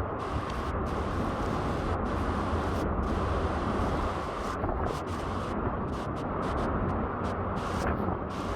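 Storm-force wind buffeting the microphone: a dense, steady rush of noise with a heavy, uneven low rumble.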